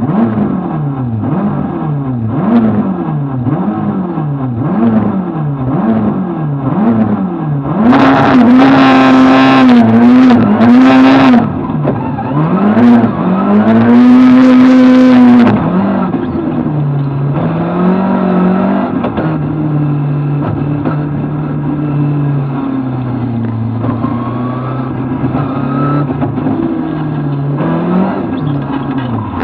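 Lada VFTS rally car's four-cylinder engine heard from inside the cabin, revved up and down over and over at the start line for about seven seconds. At about eight seconds in it launches and is held loud at high revs, with short dips between gears. After about sixteen seconds it drops to lower, changing revs as the car drives on.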